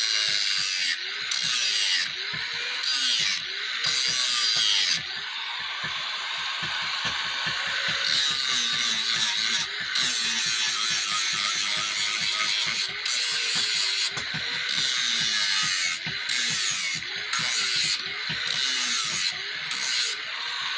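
Handheld angle grinder grinding a forged steel sickle blade, the disc biting into the metal. The harsh grinding noise breaks off briefly every second or two as the contact changes, then resumes.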